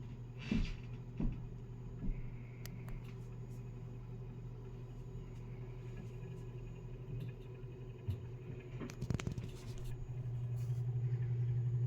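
Sears and Roebuck 10-inch two-speed table fan running on low speed: a steady motor hum. A few light clicks come in the first two seconds and a brief rustle about nine seconds in, and the hum gets louder about ten seconds in.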